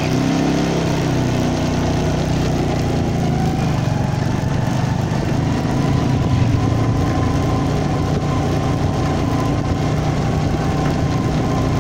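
Vehicle engine running steadily while driving, a low even drone with a faint steady whine above it. A motorcycle passes close by about six seconds in.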